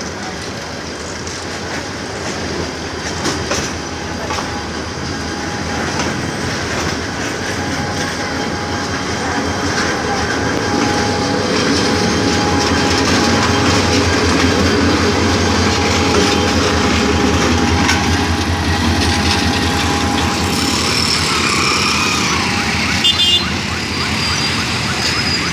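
Bangladesh Railway intercity passenger train passing close by: the coaches roll over the rails with a steady rumble and clatter, then the diesel locomotive goes past with its engine running, loudest about halfway through.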